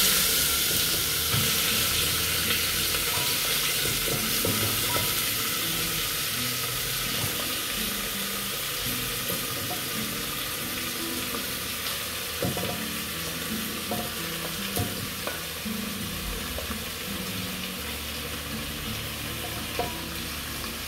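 Raw chicken pieces with chopped tomato, onion and red pepper sizzling as they drop into hot oil in a pressure cooker, with a few light knocks along the way. The sizzle is loudest at the start and slowly dies down.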